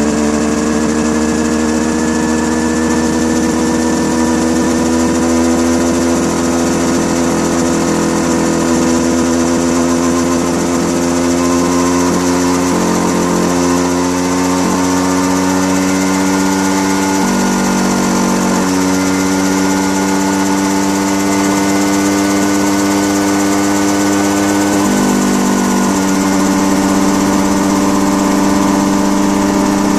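A small engine running steadily at high speed, its pitch slowly creeping upward, with a few brief wavers in speed.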